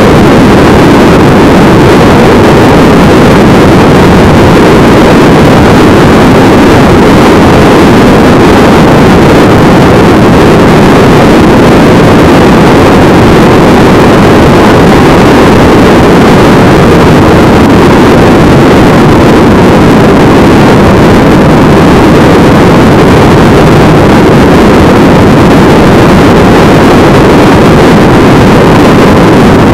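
Loud, steady rush of wind over the microphone of a camera on a moving motorcycle at road speed, with the engine and tyre noise running beneath it.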